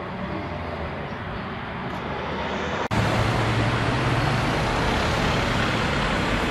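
City street traffic noise: a steady rumble and hiss of cars. It cuts off abruptly about three seconds in and comes back louder, with a heavier low rumble.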